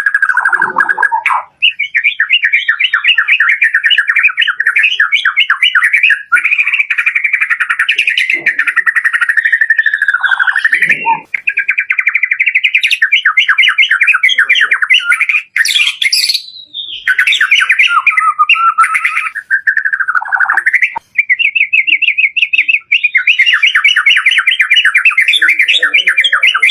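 White-rumped shama singing loudly in full, varied song: fast trills and whistled phrases following one another almost without pause, with a few brief breaks.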